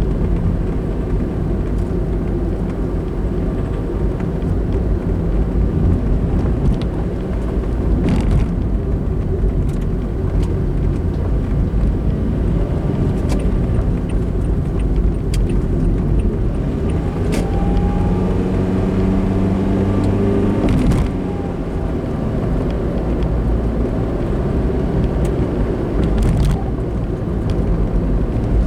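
Car driving on the road, with a steady low drone of road and engine noise. About two-thirds of the way in, a pitched engine hum rises and holds for a few seconds, then drops away. A few sharp clicks sound at scattered moments.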